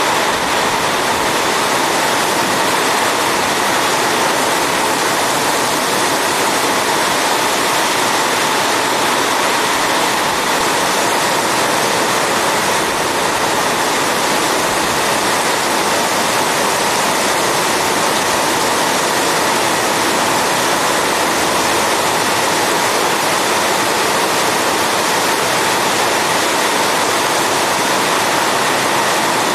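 Torrential rain pouring down onto pavement and parked cars: a loud, steady hiss that does not let up.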